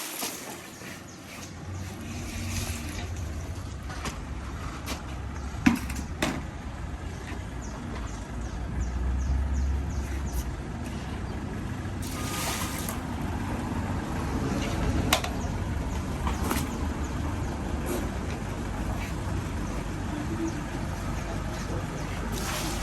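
A machine running with a steady low rumble, with a few sharp clicks and knocks over it.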